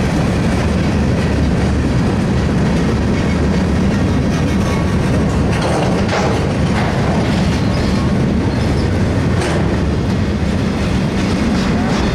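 Freight train cars rolling past at close range: a steady rumble of steel wheels on rail, with occasional clicks as the wheels pass over the track.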